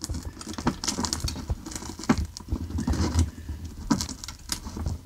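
Needle-nose pliers clicking and scraping on wire nuts and wires inside a ceiling opening, a run of small irregular clicks and scratches while trying to grip and pull the wire nuts out.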